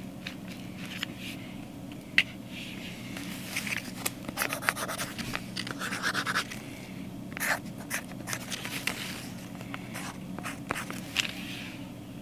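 Marker drawing on a paper tag stuck to a wrapped gift: a series of short scratchy strokes, with a sharp click about two seconds in. A low steady hum runs underneath.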